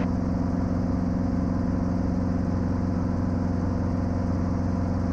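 Safari 400 helicopter's Titan 390 piston engine and rotor running steadily in flight, heard from inside the cockpit as a constant, even drone.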